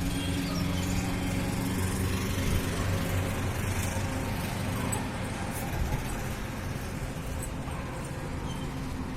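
A motor vehicle's engine running steadily with a low hum, over road traffic noise; it eases off somewhat in the second half.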